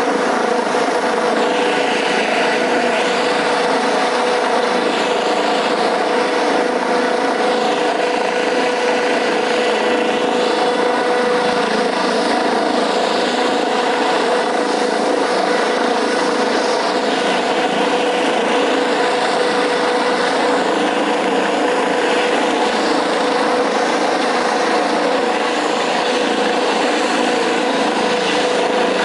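Helicopter hovering low overhead: loud, steady rotor and turbine noise with a high, unwavering tone running through it.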